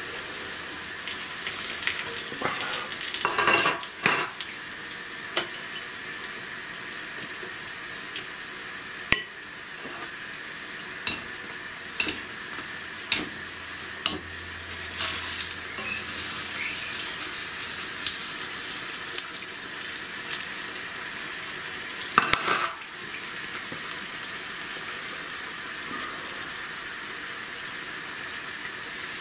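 Oil sizzling steadily in a wok as onion-ring pakoras deep-fry, with a wire spider skimmer clicking and scraping against the metal wok as the fried rings are lifted out. Two louder bursts of noise come about three seconds in and about two-thirds of the way through.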